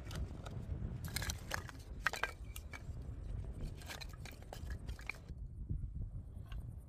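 Split wooden kindling sticks clacking and scraping against each other as they are stood up by hand into a fire lay: a run of light knocks, busiest between one and three seconds in, then thinning out.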